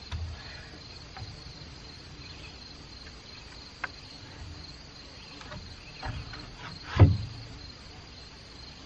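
Crickets chirring steadily in the background, with a few short knocks of a wooden 2x4 roof truss being slid and seated into metal H1 clips on the wall plates; the loudest knock comes about seven seconds in.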